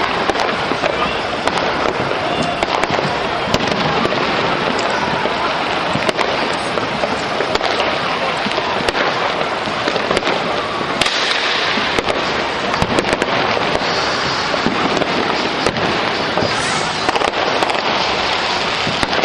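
Fireworks going off across the city: a continuous din of bangs and crackles with many sharp pops scattered throughout.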